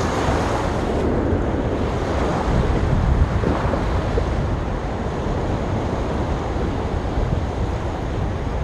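Waves breaking and washing on a sandy beach, a steady surf with heavy wind rumble on the microphone.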